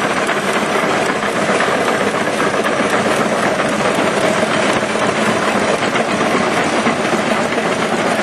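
Townsend (Fairmor) tractor's engine running steadily as the tractor drives along, a loud continuous clattering run with no let-up.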